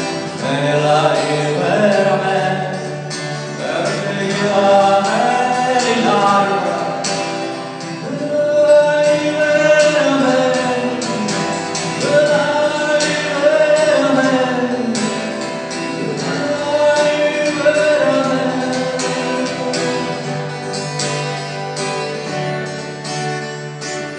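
A man singing a song melody to acoustic guitar accompaniment.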